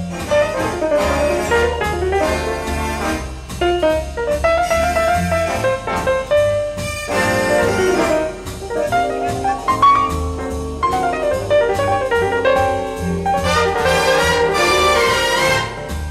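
Big-band jazz with a brass section of trumpets and trombones, and saxophones, playing over a steady beat.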